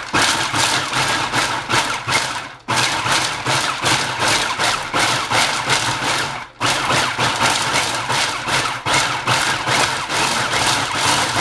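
Food processor grinding chocolate chips, its motor whirring under the rattle of the chips against the bowl and blade. It is run in three pulses, with brief stops about two and a half and six and a half seconds in.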